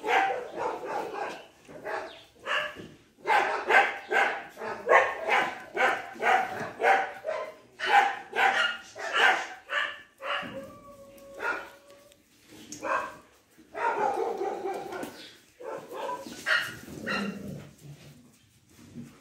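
Dogs barking over and over in quick runs of short barks, a few a second, broken about halfway by a short steady tone.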